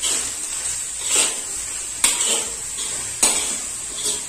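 Steel spatula scraping and clanking against a large steel kadhai while stirring fried rice, with several sharp metal knocks about a second apart.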